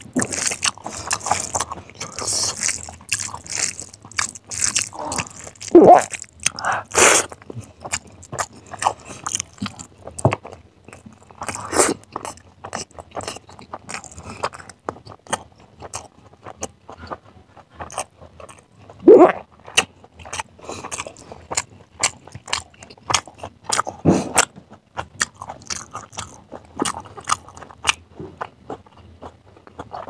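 Close-miked open-mouthed chewing of a handful of rice and chicken curry, a steady run of wet smacking and clicking mouth sounds. There are a few louder moments, about six, nineteen and twenty-four seconds in.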